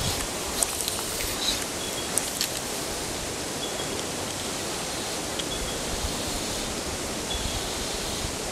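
Shallow stream flowing around a wading angler's legs, a steady even rush of water, with a few faint clicks near the start.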